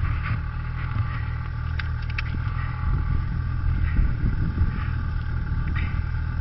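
Snowmobile engine running steadily at low speed, with a low rumble. A few light clicks come about two seconds in.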